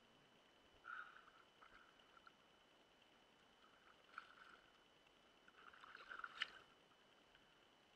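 Faint splashing of a hooked fish thrashing at the water surface close to a landing net: short splashes about a second in and around four seconds, then a longer flurry near six seconds with one sharp slap.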